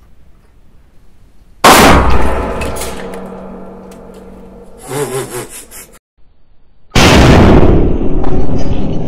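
A small civilian cannon firing 12-gauge (12/70) shells, set off by lanyard: a loud blast about a second and a half in that rings out in the small room, then a second blast about five seconds later.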